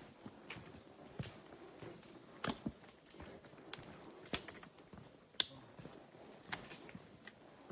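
Footsteps on a rocky forest trail: irregular sharp steps, roughly one or two a second, the sharpest about five and a half seconds in.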